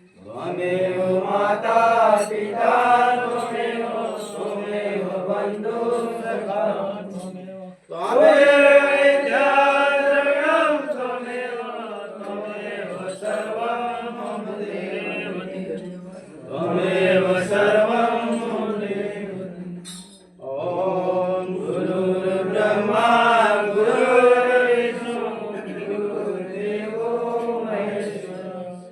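Male voices chanting a Hindu devotional aarti in long sung phrases, with brief breaths between phrases over a steady low drone.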